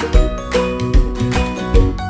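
Background music with a steady beat: plucked-guitar-like notes over a bass line and regular drum hits.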